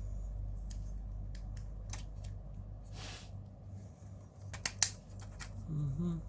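Small hard plastic kit parts clicking and snapping as an RC car gearbox is fitted together and closed, with a sharp double click a little under five seconds in. A steady low electrical hum runs underneath.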